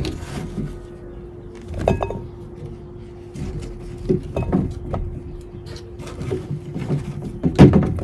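Potatoes being handled and set into a container to be weighed: a series of irregular knocks and thuds, the loudest near the end, over a steady faint tone.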